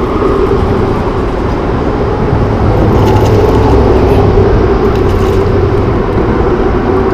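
Steady low engine drone with a constant hum.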